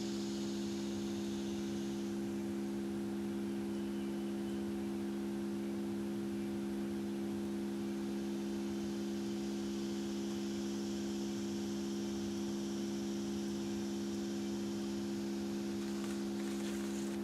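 Tone generator playing a steady 68 Hz test tone: a constant, unchanging hum.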